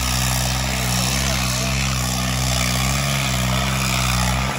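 Diesel tractor engine running at steady revs, its pitch holding nearly constant.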